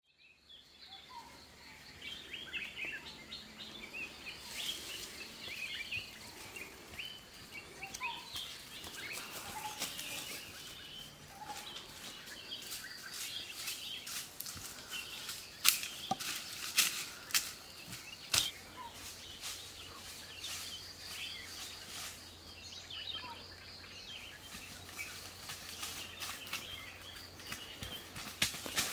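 Forest ambience: small birds chirping on and off over a faint steady high tone, with a handful of sharp snaps about halfway through.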